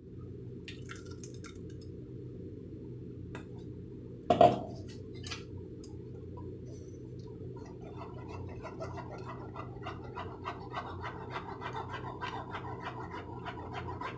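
A metal spoon scraping and pressing wet watermelon pulp through a plastic mesh strainer, in quick repeated scratchy strokes from about halfway through. A single loud knock comes about four seconds in, and a steady low hum runs underneath.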